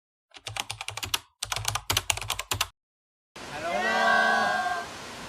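Rapid clicking of computer-keyboard typing for about two seconds, stopping dead. After a short silence, a steady rush of waterfall water comes in, with one long, held call over it.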